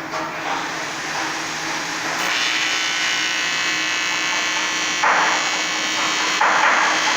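AC TIG welding arc on aluminium, a steady buzzing hiss that becomes more even about two seconds in, with two brief louder surges near the end.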